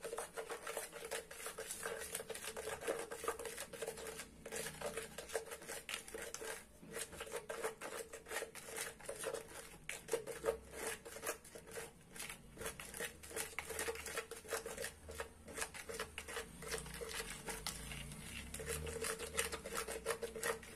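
A stick stirring inside a plastic measuring jug, scraping and clicking against its sides and bottom in a quick, uneven run of small strokes. It is mixing thick Texapon 70 paste with table salt before any water is added.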